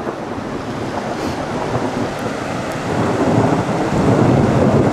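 Muddy flash-flood water rushing across a dirt road, a steady rushing noise that grows louder about three seconds in.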